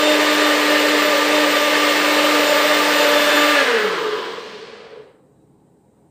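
Personal bullet-style blender running at full speed with a steady whine, blending a thick drink of soup, honey, peanut butter and water. After about three and a half seconds the motor is released and spins down with a falling pitch, stopping about five seconds in.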